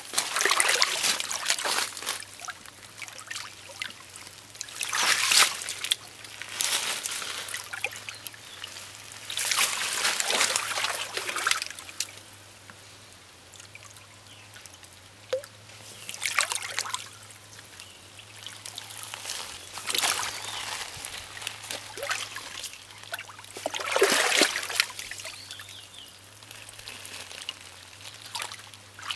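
Hands sloshing and splashing through shallow muddy water while groping for catfish, in irregular bursts every few seconds with quieter trickling between.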